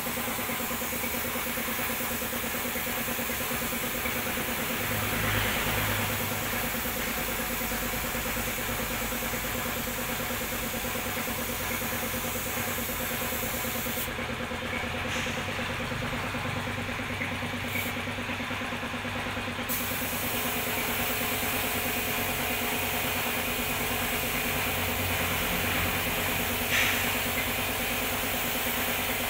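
Paint spray gun hissing as it sprays, over the steady hum of the air compressor that feeds it. The hiss stops for several seconds about halfway through, with short breaks, then starts again while the compressor runs on.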